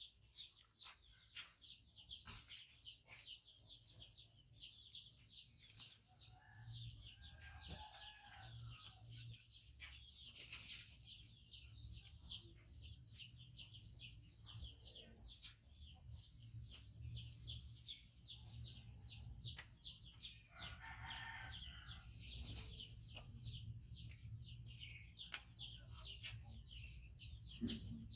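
Faint background of rapid, high chirping, about three or four chirps a second, keeping on throughout. A distant rooster crows about eight seconds in and again about twenty-one seconds in.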